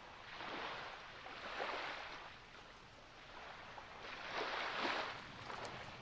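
Small waves washing in on a beach: two surges of hissing water, one from about half a second in and a louder one about four seconds in.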